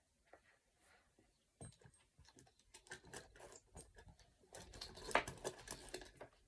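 Small plastic fidget toys being handled and rummaged through: faint, irregular clicks and rustles that start about a second and a half in and grow busier near the end.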